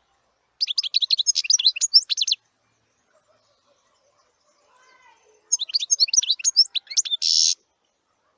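A songbird singing two quick phrases of rapid high chirping notes with a pause between them; the second phrase ends in a short buzzy note.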